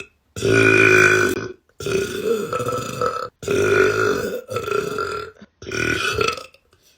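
A young woman belching, five long burps in a row, each about a second long with a short break between them.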